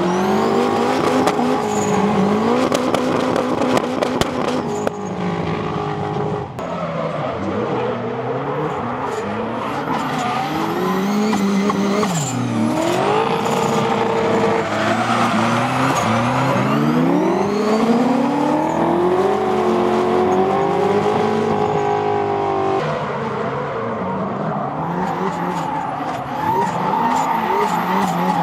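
Turbocharged Toyota Corolla AE86 drift car's engine revving up and down over and over, its pitch climbing and dropping in repeated sweeps, with tyres screeching as the car slides.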